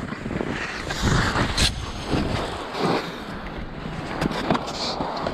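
Skis scraping over packed snow with wind buffeting the microphone in uneven surges, then a few sharp knocks in the second half.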